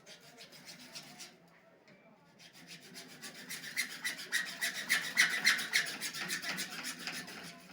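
Rapid rasping strokes of a hand tool scraping hard material, about ten a second: a short run at first, then a longer run building up about two and a half seconds in.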